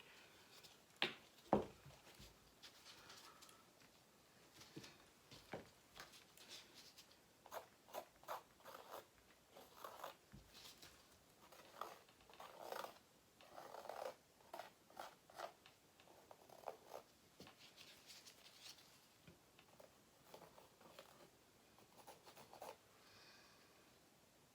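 Faint handling noises: two sharp knocks about a second in, then scattered short scratchy clicks and rustles, as hands work the canvas and its paint.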